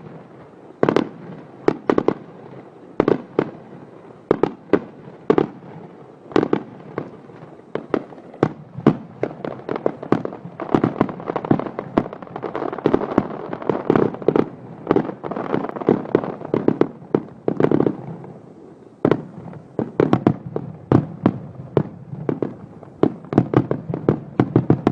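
Fireworks going off: an irregular run of sharp bangs and pops, often several a second, over a steady crackle.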